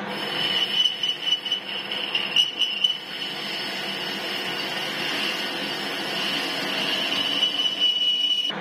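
Metal lathe boring the inside of a spinning metal part: a steady high cutting whine over the machine's hum, uneven and louder in the first three seconds and just before it cuts off sharply at the end of the cut.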